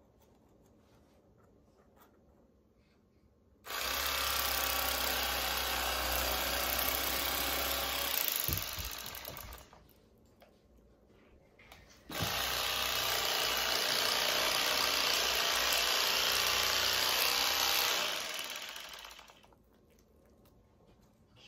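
Bubba Blade electric fillet knife running in two long bursts, each about five to six seconds, its reciprocating blades cutting a fillet from the second side of a crappie; each burst winds down over a second or so as the knife stops.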